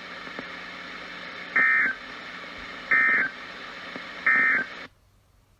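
Emergency Alert System End of Message signal on NOAA Weather Radio: three short, identical bursts of warbling digital data tones, about a second and a half apart, over steady radio hiss. The broadcast audio cuts off sharply just after the third burst.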